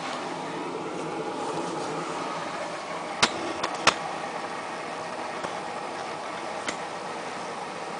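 Samsung WF8804RPA front-loading washing machine running a prerinse, a steady machine noise with three sharp clicks a little before the middle and another near the end.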